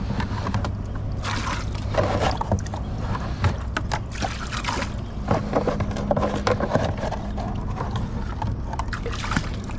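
Water sloshing and gurgling as the flooded stern well of a small boat is emptied by hand, with irregular splashes and scrapes over a steady low hum.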